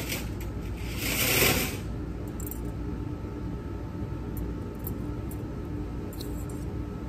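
Handling of a metal surgical instrument stringer: a brief swishing rustle about a second in, then a few faint light clicks, over a steady background hum.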